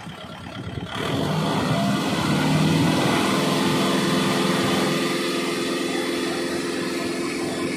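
Kubota MU5501 tractor's four-cylinder diesel engine running, revved up sharply about a second in and then held at high revs.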